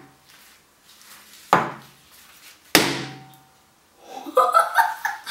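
Banana frozen rock-hard in dry ice knocked against a wooden cutting board: two sharp, hard knocks about a second apart, each ringing briefly. A short burst of voice follows near the end.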